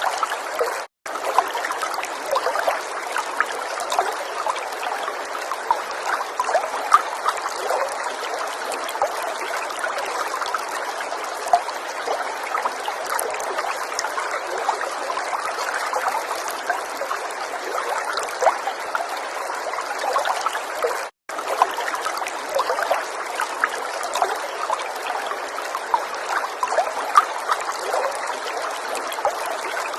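Falling water trickling and splashing steadily. The sound cuts out abruptly twice for a split second, about a second in and again about two-thirds of the way through.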